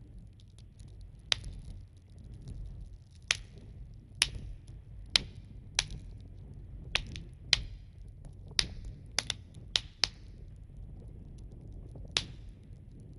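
A crackling fire: irregular sharp pops, about one a second, over a low steady rumble.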